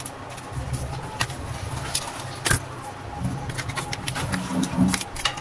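Plastic clicks and knocks as the two halves of a mini cooler's pink plastic blower housing are pulled apart and handled, the loudest a sharp click about two and a half seconds in, over a steady low rumble.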